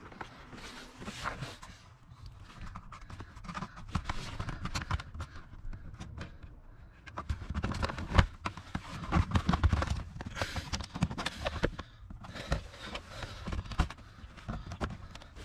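Hands working a wire in behind plastic dashboard trim in a car footwell: irregular rustling with scattered clicks and knocks. The loudest knock comes about eight seconds in, followed by a cluster of duller thuds.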